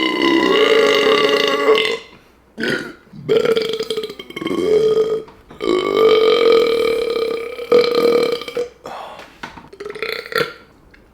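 A man burping loudly again and again: three long, drawn-out burps of two to three seconds each, with a few short ones between them and near the end.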